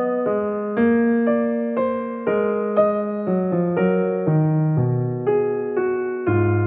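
Background music: a slow keyboard melody in the manner of an electric piano. Each note is struck and fades, about two notes a second.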